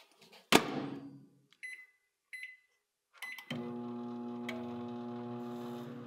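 Panasonic microwave oven: the door shuts with a thud, a few keypad beeps follow, then the oven starts and runs with a steady hum.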